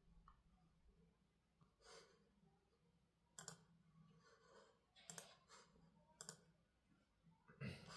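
Faint, irregular clicks from a laptop's keys or touchpad, about six over several seconds, the loudest near the end; otherwise near silence.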